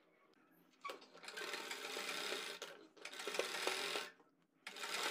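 Sewing machine stitching in short runs: it starts about a second in, breaks briefly near the middle, stops again for about half a second, then starts up once more.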